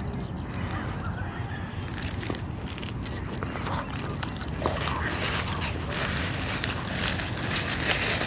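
A person chewing and biting into a breakfast sandwich close to the microphone, with small scattered mouth clicks over a steady low background rumble.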